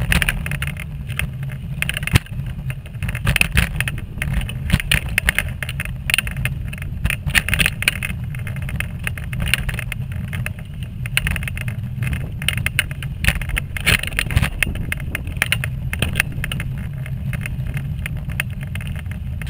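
Wheelchair rolling along a path: a steady low rumble of the wheels with frequent irregular crackles and clicks.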